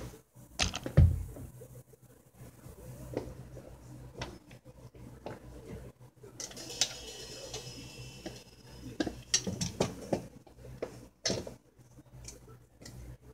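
Scattered knocks and metallic clinks from a drum kit being handled before playing, with a heavier low hit about a second in. A cymbal rings briefly about six and a half seconds in.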